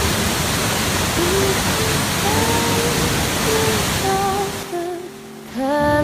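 Steady rush of falling water from Sol Duc Falls under soft background music. The water noise drops away about five seconds in, and the music comes up louder near the end.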